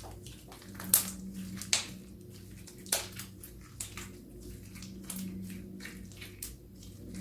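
Crunchy slime caviar being squeezed and kneaded by hand, crackling with an irregular run of small pops and sharper crunches.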